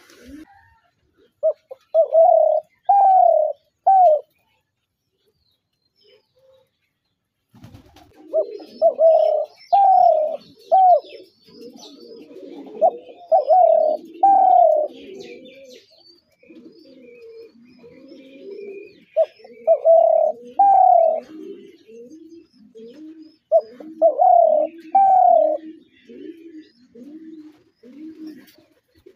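Spotted doves cooing: short phrases of three or four loud coos repeated every few seconds, with a softer, lower-pitched run of coos from a second bird going on underneath from about a quarter of the way in. There is a complete silence of a few seconds before that second bird starts.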